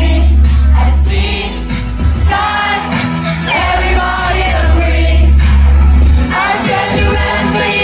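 Loud amplified pop music with women singing a melody into microphones over a heavy bass line.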